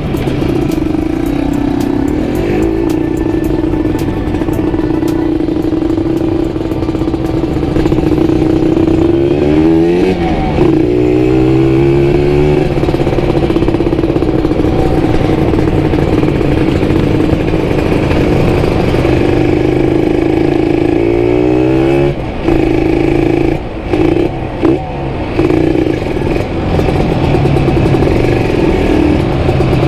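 Kawasaki Ninja RR 150 two-stroke single with a CMS aftermarket exhaust running steadily. Its pitch rises and falls around ten seconds in and again just past twenty seconds. The sound dips briefly several times a little later.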